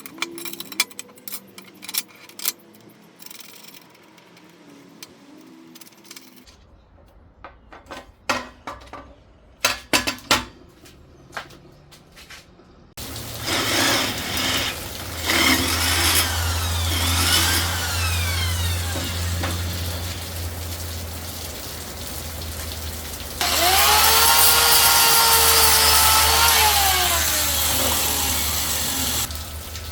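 Workshop fabrication sounds: sharp knocks and clicks of metal parts being handled, then a power tool running. Near the end it runs louder, its pitch rising and then falling as it winds down.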